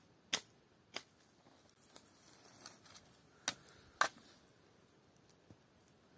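Food-preparation handling sounds: a few sharp clicks and knocks, four of them louder, spread over about four seconds, with light rustling between.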